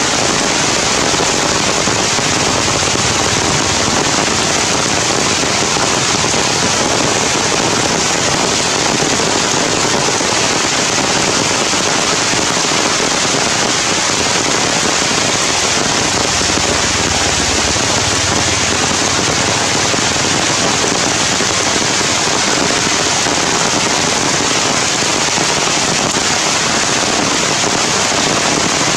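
Heavy rain pouring down in a loud, steady hiss.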